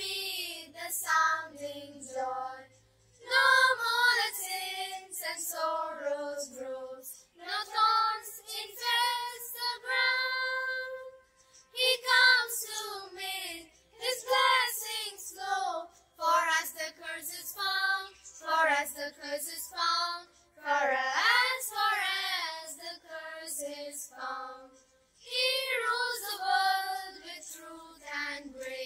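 A child singing a song, phrase after phrase with short breaks between.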